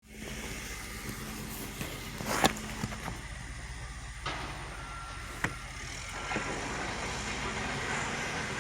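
Backhoe engine running steadily, with a few sharp clanks (the loudest about two and a half seconds in) and two short high tones a little past the middle.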